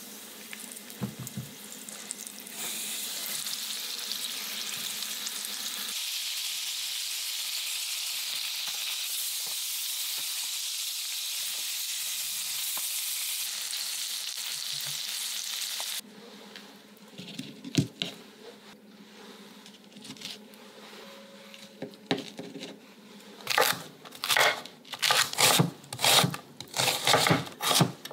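Flour-dusted yellow croakers sizzling steadily as they fry in oil in a pan, the sizzle growing louder a few seconds in. Near the end, a kitchen knife chops vegetables on a bamboo cutting board in a quick run of strokes, about two to three a second.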